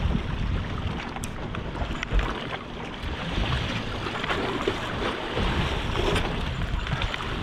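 Wind buffeting the microphone on an open fishing boat, with water washing against the hull and a few light knocks.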